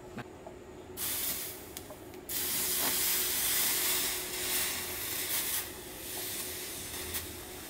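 Water poured from a jug onto a red-hot steel bolt in a vise, hissing and sizzling as it quenches the metal. A short burst comes about a second in, then a longer, louder one that fades near the end.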